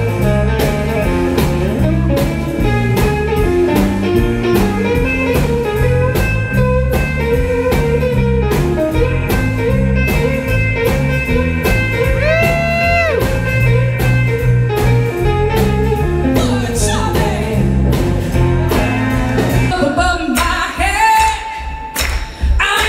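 Live blues band: an electric guitar plays the lead line, with some string bends, over bass and drums with a steady beat. About 20 seconds in it cuts to a different song, with a voice singing over the band.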